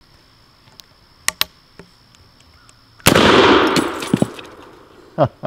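A black-powder shot from a .577 Pattern 1853 Enfield percussion rifle musket about three seconds in: a sudden loud report, then a long echo that fades away over about a second and a half. Two sharp clicks come a little more than a second before the shot.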